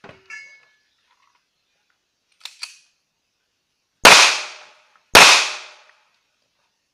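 Two pistol shots about a second apart, about four and five seconds in, each a sharp crack with a ringing tail that dies away over most of a second. Two faint clicks come a little before them.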